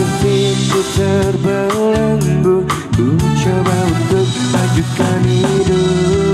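A man singing a song live into a microphone, amplified over backing music with a drum beat.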